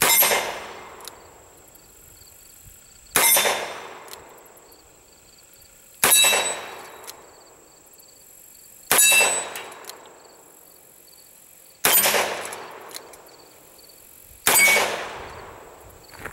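Six shots from a Colt Lawman Mk III .357 Magnum revolver firing .38 Special rounds, one about every three seconds, each dying away over about a second. A metallic ring follows the shots as the steel plate targets are hit.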